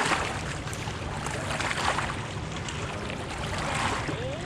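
Wind and water noise around a small fishing boat on open water: a steady low rumble under a rushing hiss, with a few brief louder swells.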